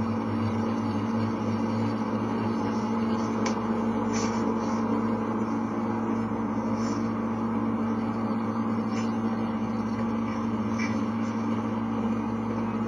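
Steady electrical hum and room noise of an interview-room recording, with a few faint clicks.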